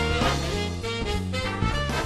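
Background music in a swing jazz style, with steady sustained notes and a regular beat.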